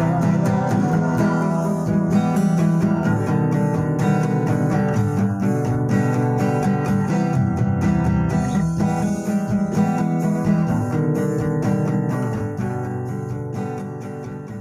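Strummed guitar playing the instrumental ending of a song, fading out over the last few seconds.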